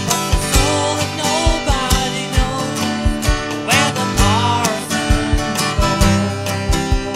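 Acoustic guitar strumming chords over a drum machine's steady beat.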